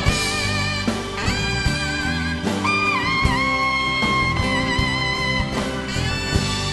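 Live band playing an instrumental break: a saxophone solo over drums and electric guitar. About midway the saxophone holds a long note that dips in pitch.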